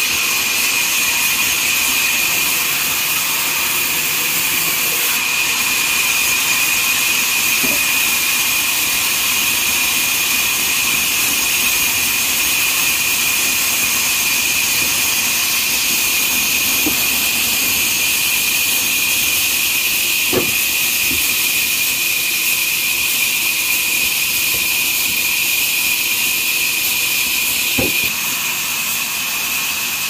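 Horizontal band sawmill running steadily with a high, whining hiss, and a few single wooden knocks from planks being handled.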